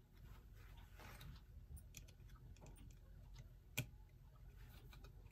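Faint, irregular small clicks and scrapes of a tool prying the hands off a clock's hand shaft, with one sharper click about four seconds in.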